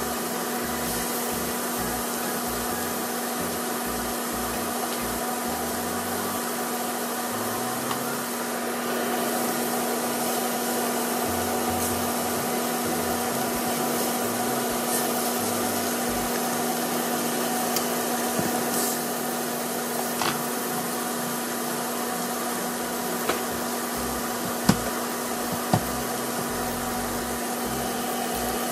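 Steady whirring of a motor-driven fan, a constant hum under an even whoosh, in a kitchen while steaks cook in a frying pan. Two sharp light clicks come about a second apart near the end.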